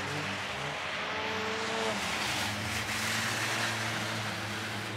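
Skid cars, front-wheel-drive cars with steel skid plates in place of the rear wheels, running on a paved short track: engines revving, one note rising over the first couple of seconds, over a broad scraping hiss from skid plates dragging on the pavement.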